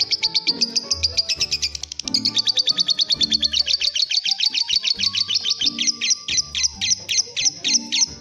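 Fischer's lovebird chirping in a fast, unbroken run of short, high chirps, with a brief break about two seconds in, slowing to about three separate chirps a second near the end.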